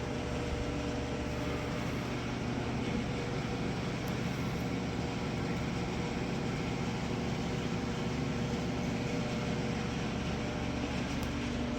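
Steady mechanical hum of workshop background noise, with a few faint clicks.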